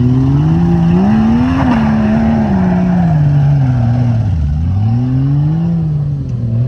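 A motor vehicle engine revving up and easing off: its pitch climbs, sinks low past the middle, then climbs and falls once more.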